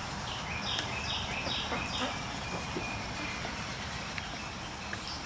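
A bird calling: a quick run of about five short, high chirping notes in the first two seconds, over a steady low outdoor rumble.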